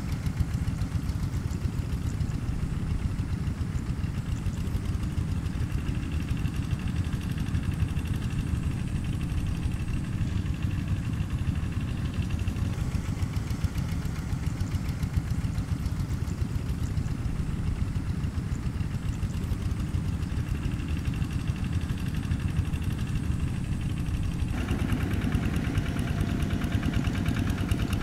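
Quick G1000 two-wheel hand tractor's single-cylinder diesel engine running steadily under load with a fast, even chug as its cage wheels pull through wet paddy soil. Near the end the sound turns brighter and closer.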